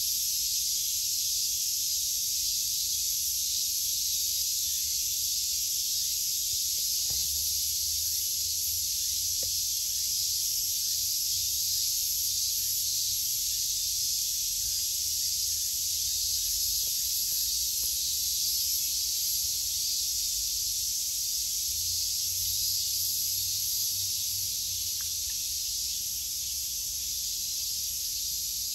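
Steady, high-pitched, unbroken buzzing chorus of cicadas in summer.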